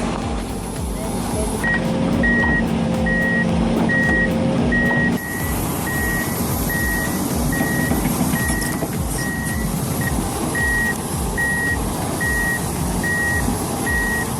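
Heavy machine's diesel engine running while its reversing alarm beeps steadily, one short high beep about every 0.7 seconds, starting a couple of seconds in.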